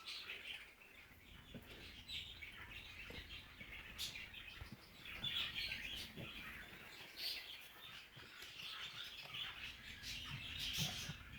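An animal snoring and snorting as it drinks water: irregular short hissy snorts and breaths with small clicks scattered through.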